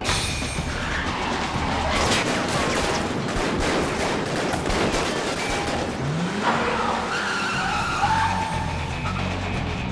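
Dense film action sound of a gunfight in a concrete car park: a loud, continuous din with repeated sharp cracks of gunshots, and a wavering whine in the second half.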